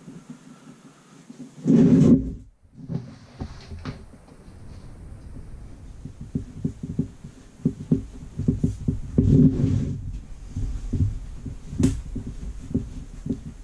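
Handling noises from a pop-up fabric storage organiser with a frame and hard top. There is a loud knock about two seconds in, then a busy run of clicks, knocks and rustles as the front fabric flap is opened and closed and the unit is pushed about.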